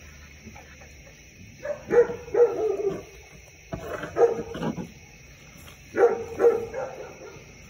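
Dog barking in three short bouts of two or three barks each, about two seconds apart.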